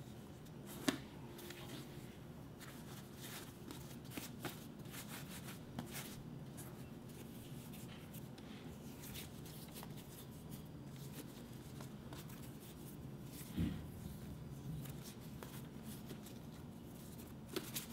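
Faint, scattered rustles and light taps of hands pressing, pinching and rolling soft yeast dough into balls on a floured wooden board, with one louder soft knock about three-quarters of the way through.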